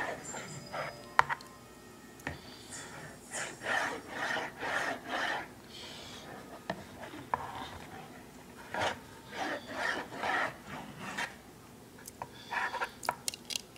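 Hands scooping Orbeez water beads out of a bowl of water into a small clear container: runs of short rubbing, scraping strokes, about three or four a second, with a few sharp clicks of the container.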